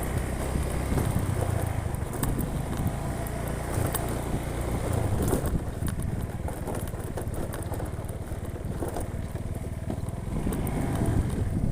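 Vehicle engine running while driving, a steady low rumble with occasional knocks and rattles from a rough track.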